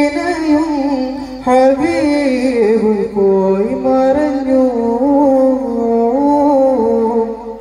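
A man singing a Malayalam Milad devotional song into a microphone, drawing out long wavering notes between lines of the lyric; the singing stops near the end.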